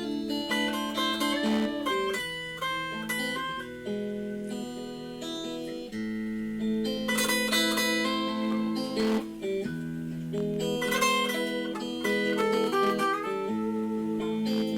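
Solo acoustic guitar playing a Spanish-style blues in A minor: held bass notes under picked melody notes, with a few quick strummed chords.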